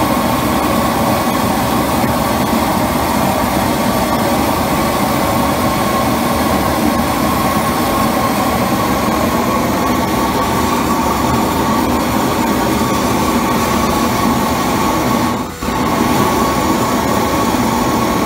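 Pressure-washer steam cleaner running: a pressure washer feeding a rosebud-torch-fired mono-tube boiler, with steam jetting from the nozzle. It makes a loud, steady rushing noise with a steady hum under it, and dips for a split second about three-quarters of the way through.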